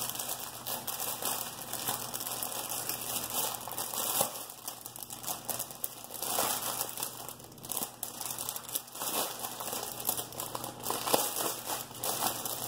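Crinkling of a clear plastic bag full of small packets of diamond-painting drills as it is handled, with uneven crackles and rustles throughout.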